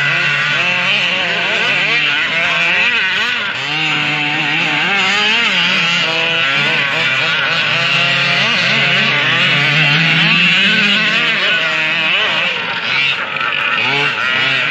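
Several 1/5-scale gas RC cars' small two-stroke engines buzzing at once, among them a 34cc OBR-engined HPI Baja / Rovan LT. Their pitches keep rising and falling over each other as they rev and back off around the track.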